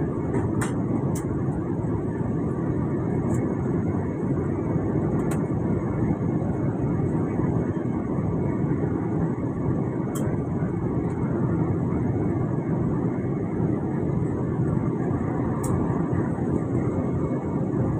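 Steady roar of an airliner's engines and rushing air, heard inside the passenger cabin during the descent, with a few faint ticks.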